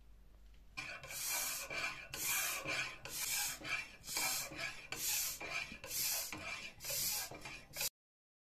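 Restored vintage floor bike pump being worked to inflate a rubber balloon: each stroke is a rush of air, about one a second, seven strokes in all. The sound cuts off suddenly near the end.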